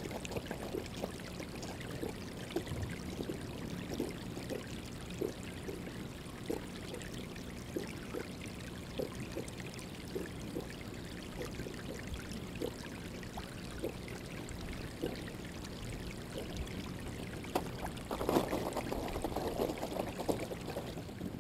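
Water lapping and trickling in a drinking trough as desert bighorn sheep drink, with small splashes about every half second. Near the end the water churns louder as the sheep's muzzles come up against the camera.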